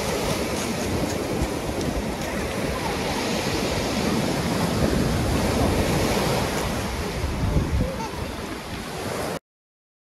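Rough-sea waves breaking and washing up a shell-and-pebble beach, a steady rush of surf. It cuts off abruptly about nine seconds in.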